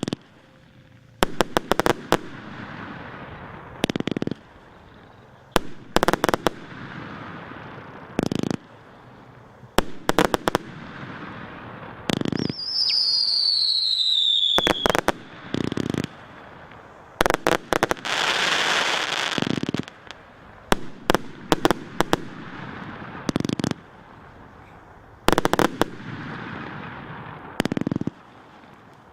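A 171-shot, 30 mm consumer fireworks cake firing shot after shot, groups of sharp launch and burst bangs every second or two. About halfway through, a whistle falls in pitch, and soon after comes a longer stretch of crackling sparks.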